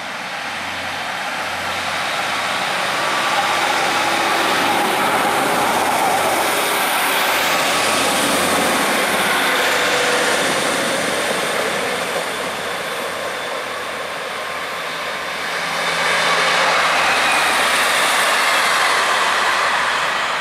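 Northern Class 156 diesel multiple unit running along the platform, its diesel engine droning under the rumble of wheels on rail. The sound builds over the first few seconds as the train draws close, eases in the middle, then swells again near the end.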